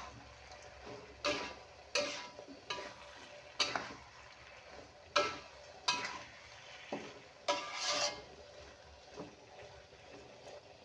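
A metal spatula scrapes and clinks against an aluminium wok, stirring a shrimp-and-vegetable stir-fry in irregular strokes roughly once a second.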